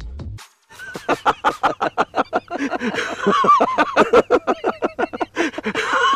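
Men laughing heartily in rapid, repeated ha-ha bursts, about five a second, starting just under a second in. A low steady musical tone cuts off at the very start.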